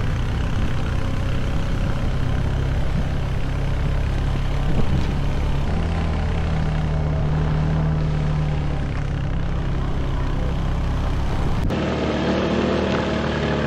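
ATV or UTV engine running steadily while riding, a low droning note over a broad rushing noise. The engine's pitch shifts about halfway through, and the sound changes abruptly near the end.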